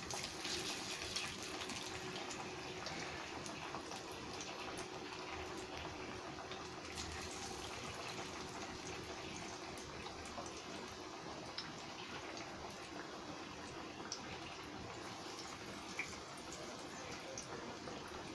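Lentil fritters (paruppu vadai) deep-frying in hot oil: a steady sizzle with scattered small pops and crackles, a little louder at the start as another vada is slipped into the oil.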